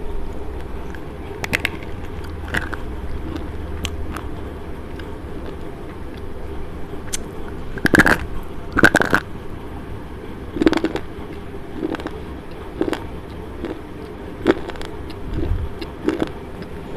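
Slate pencil being bitten and chewed right against a clip-on microphone: crisp snaps as pieces break off, the loudest two about eight and nine seconds in, then crunches of chewing about once a second.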